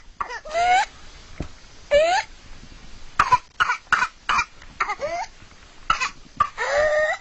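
Whooping cough (pertussis): fits of rapid, harsh coughs broken by long rising whoops as the person gasps air back in, four whoops in all, the last near the end.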